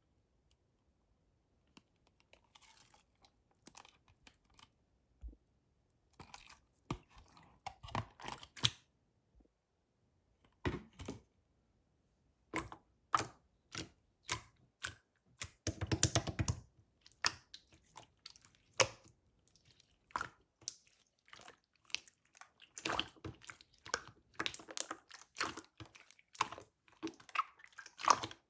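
Clear slime being squeezed and poked by hand, giving irregular wet clicks and squishes. They come sparsely at first and thicken about halfway through, with a short dense flurry of squishing.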